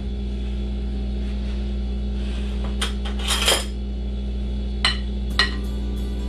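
A metal spoon clinking against a glass mixing bowl as it stirs buttermilk marinade over chicken drumsticks: about four sharp clinks, each with a short glassy ring, in the second half.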